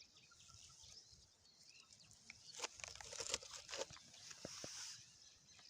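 Faint crinkling and crunching of a discarded plastic item being picked up and handled, with scattered crackles mostly in the middle.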